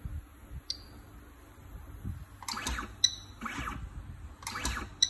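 Stepper motor of a DIY cell spot welder driving the electrode head down, a sharp click with a short high beep, then the motor lifting the head back up. The cycle runs twice, about two seconds apart, after a single short button beep near the start.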